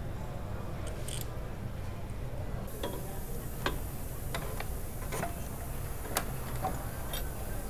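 Several light, sharp clicks and taps at uneven intervals, starting about three seconds in, over a steady low hum.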